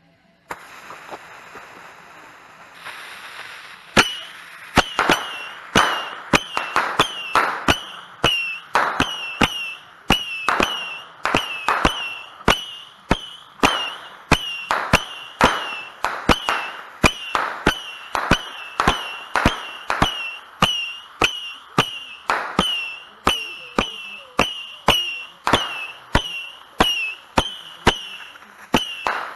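Fuse of a 100-shot Saturn missile battery hissing. From about four seconds in, the missiles fire in rapid succession, about two a second, each one a sharp pop followed by a short whistle.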